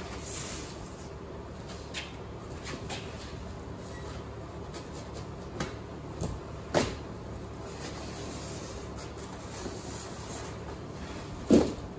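A large cardboard shipping box being handled and opened: a few scattered knocks and scrapes over a steady background hum, with a louder knock shortly before the end.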